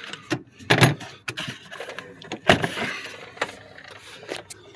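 Hand-tool work on a plastic engine-bay cover: pliers and hard plastic clicking and knocking as the cover is worked loose, a handful of separate sharp clacks, the loudest about a second in and again about two and a half seconds in.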